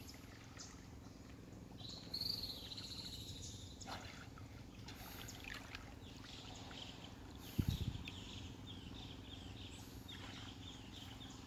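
Faint riverside ambience: a bird's trill about two seconds in and scattered small chirps afterwards, over a quiet wash of running water. One short low thump about two-thirds of the way through.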